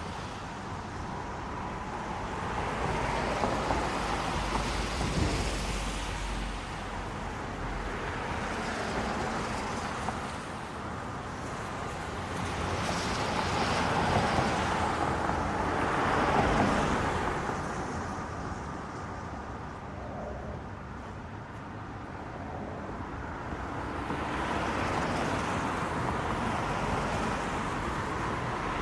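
Medium-flow road traffic driving through snow and slush. Tyres hiss through the wet slush as cars pass one after another, swelling and fading, with the loudest passes a little past the middle.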